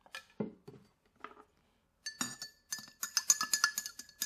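A few soft knocks, then about two seconds in a spoon starts stirring quickly in a glass container of liquid gelatin mix: rapid clinking over a steady ringing tone from the glass.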